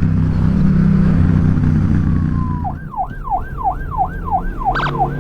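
Yamaha XSR700's parallel-twin motorcycle engine running at road speed, then about two and a half seconds in it drops away as a police siren starts yelping, rising and falling about twice a second.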